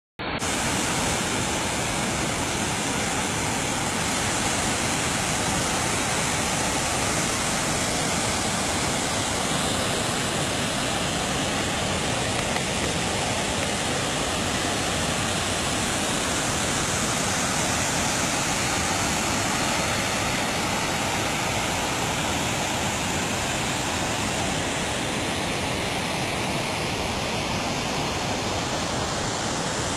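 Water rushing out through a dam's sluice gate, a steady unbroken rushing noise.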